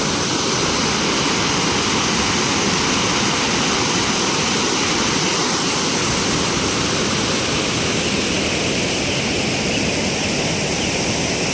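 Double waterfall: a steady, unbroken rush of falling water.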